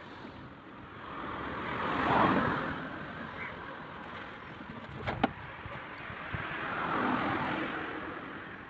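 Two road vehicles passing by, each a rush of noise that rises and fades, with a sharp click about five seconds in.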